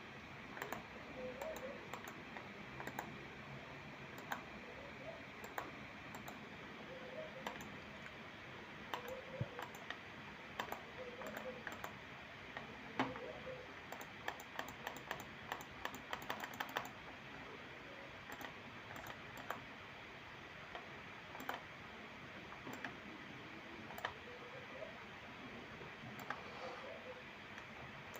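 Computer keyboard typing and mouse clicks, scattered single keystrokes with a quick burst of rapid typing about halfway through.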